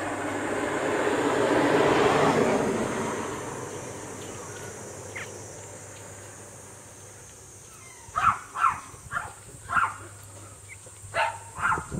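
Pekingese puppies crying in short high squeaks, about six or seven of them from about eight seconds in. Before that, a rushing noise swells and fades over the first few seconds.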